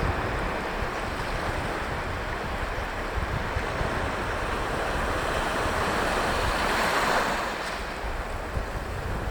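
Sea waves washing on the shore of a fairly calm sea, with wind rumbling on the microphone; one wave swells louder about seven seconds in.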